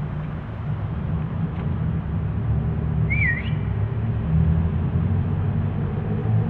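A car pulling up with its engine running, a low steady rumble. A brief wavering squeak sounds about three seconds in.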